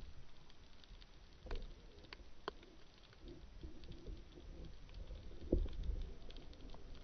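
Underwater ambience picked up by a camera in its housing: scattered sharp clicks and crackles over a low rumble, with a duller, louder thump about five and a half seconds in.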